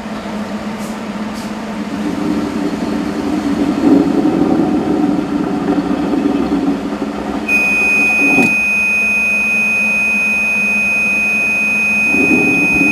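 EDM machine running with a steady low hum while the dielectric fluid is drained from the machining chamber. About halfway through, a continuous high-pitched electronic alarm tone starts abruptly and holds, signalling that the dielectric level is very low. A single click follows about a second after the alarm starts.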